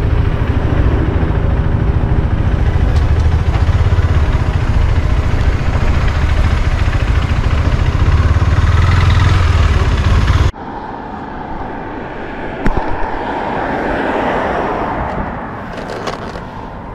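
KTM 390 Duke's single-cylinder engine running at low speed and idling in slow city traffic, a loud, steady low thrum. About ten seconds in it cuts off suddenly to a much quieter steady hiss with a couple of sharp clicks.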